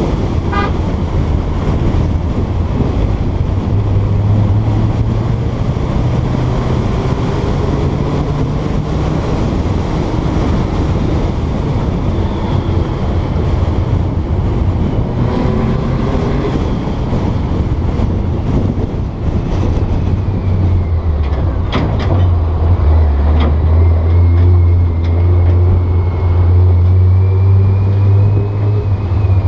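Porsche 912's air-cooled flat-four engine running as the car drives along, mixed with steady road and tyre noise, its engine note slowly rising and falling. A few sharp knocks come a little over twenty seconds in, and the engine drone grows stronger after that.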